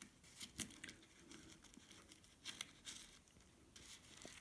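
Small metal hardware, washers and a terminal bolt, being handled. A few light, separate metallic clicks and clinks.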